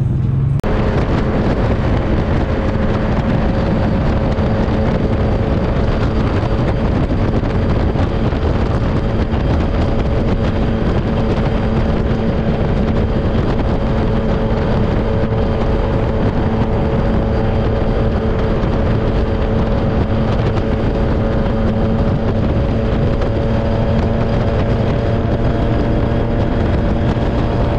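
Vehicle engine holding a steady cruising speed under heavy wind and road rush, its pitch barely changing.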